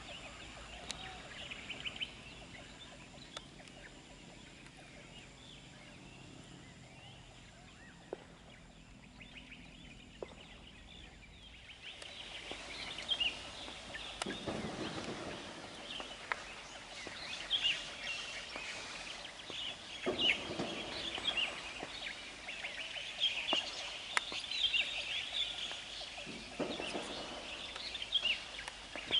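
Birds calling outdoors with many short chirps, quiet at first and much busier from about twelve seconds in.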